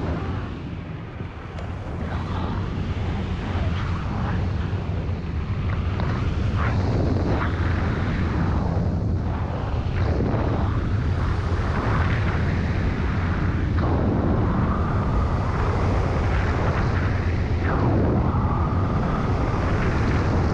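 Miniplane Top 80 single-cylinder two-stroke paramotor engine running steadily in flight, with wind rushing over the microphone. The sound dips briefly about a second in, then builds and holds steady.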